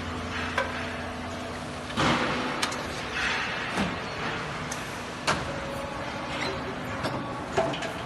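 Parabolic rolling machine rolling a red-hot steel leaf-spring blank between its rolls. Steady machinery noise with irregular metallic knocks and clanks every second or two; the loudest is a sharp burst about two seconds in.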